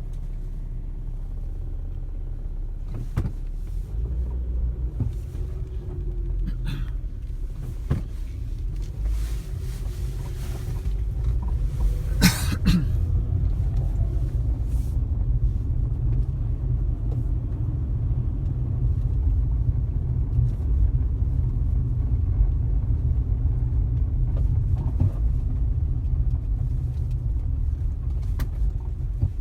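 Car road noise heard from inside the cabin while driving: a steady low rumble of engine and tyres that grows a little louder partway through, with a sharp knock about twelve seconds in.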